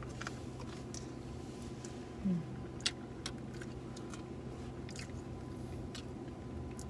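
Quiet eating sounds of ice cream being spooned from paper cups and eaten: scattered sharp little clicks and mouth noises, with one brief short hum of a voice about two seconds in, over a steady low hum inside the car.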